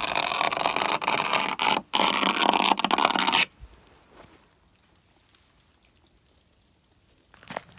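Knife blade scraping a layer of ice off a car's painted body panel: a rough, gritty scraping for about three and a half seconds, with a brief break a little under two seconds in, then it stops.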